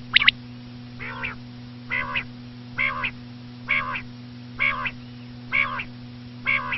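Female common quail calling: a sharp high double note at the start, then a run of seven raspy, nasal calls about one a second.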